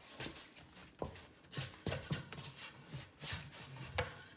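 Silicone spatula scraping and folding tortilla dough and loose flour around a stainless steel bowl: a run of irregular rubbing, scraping strokes, working a little extra flour into dough that is too soft.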